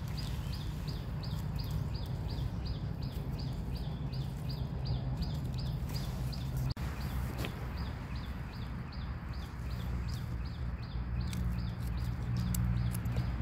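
A short, high, falling chirp repeated steadily about three times a second, from a calling animal, over a low steady drone, with a couple of soft clicks about seven seconds in.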